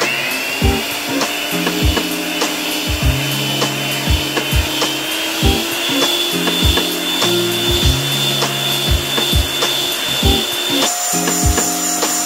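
Electric hand mixer starting up and whirring steadily as its beaters whip cream, its motor whine jumping higher about eleven seconds in. Background music with a steady beat plays underneath.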